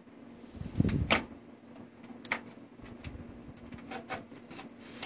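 Scattered light clicks and ticks as a video card is pressed and rocked into a PCI Express slot on a motherboard, with a dull bump of handling about a second in.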